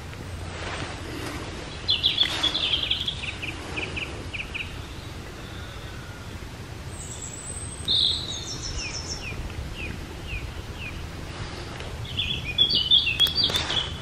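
Small songbirds singing in short bursts of quick, high chirps and trills: about two seconds in, again around eight seconds, and near the end, over a steady low background rumble.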